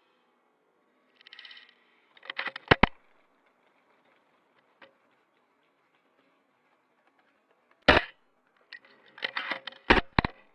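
Airsoft guns firing: sharp clacks in short clusters, about two and a half seconds in, a single loud one near eight seconds, and another cluster near the end.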